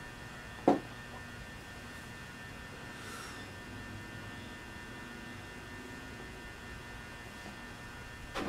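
Steady electrical mains hum, broken once by a sharp click less than a second in.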